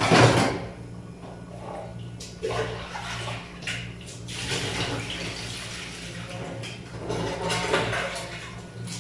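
Caldereta sauce bubbling in a covered aluminium pot on a gas stove, with irregular small pops over a steady low hum. There is a louder burst of noise right at the start.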